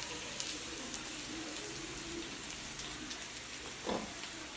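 Halved boiled potatoes sizzling in oil in a frying pan over low heat as they brown: a steady hiss with scattered light crackles. A brief low sound about four seconds in.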